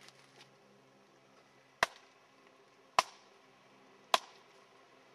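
Three sharp knocks of a wooden stick struck against a pine tree trunk, evenly spaced a little over a second apart: a wood knock, the tree-knocking said to be how Sasquatch call to each other.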